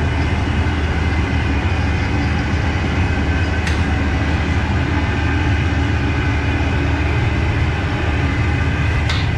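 Steady loud rumble of a moving vehicle, with a hum of steady tones above it.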